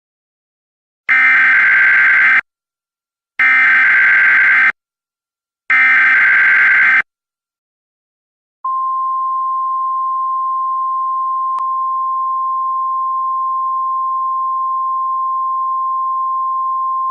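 Emergency Alert System SAME header: three short bursts of digital data tones, about a second apart. Then a single steady attention tone near 1 kHz (the National Weather Service's 1050 Hz alert tone) starts and holds, announcing a severe thunderstorm warning.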